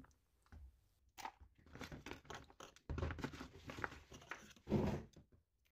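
Hands handling the parts of a disassembled electric drill on a worktable: the plastic housing halves, the stator and its wiring. Faint rustling and small clicks, with a louder knock about five seconds in.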